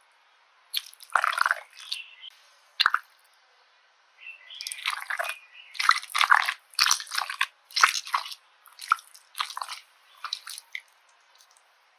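Slime being squeezed and poked by hand, making short wet squishing and crackling sounds: a couple of squishes in the first three seconds, then a quick run of them.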